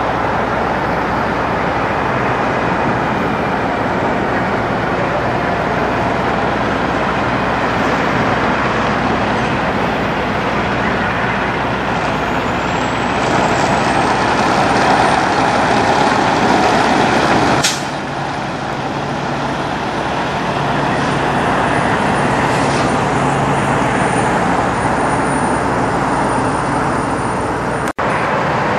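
Kenworth semi-truck's diesel engine running as the tractor-trailer pulls away and turns, getting louder partway through, with a faint high whine that rises and then holds. About 18 seconds in there is a sharp snap, and the engine sound drops after it.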